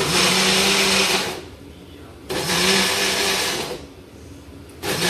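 Small personal blender pulsed in three short bursts, its motor whirring for about a second and a half each time as it grinds a wet spice paste; the third burst starts near the end.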